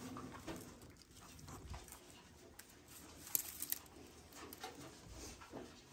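Faint, scattered calls of a litter of baby hedgehogs, which are noisy, over light rustling of wood-shaving bedding. A short cluster of sharp clicks comes a little past halfway.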